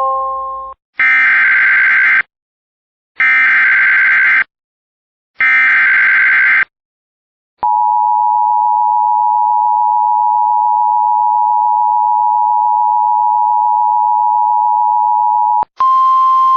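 Emergency Alert System tones: three separate buzzy, screeching bursts of the digital SAME header, each a bit over a second long, then the steady two-tone EAS attention signal held for about eight seconds. Near the end another buzzy burst with a tone starts.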